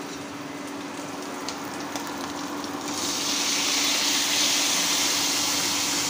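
Oil and ginger frying lightly in a steel kadai, then chopped tomatoes tipped in about three seconds in set off a loud, steady sizzle. A low steady hum runs underneath.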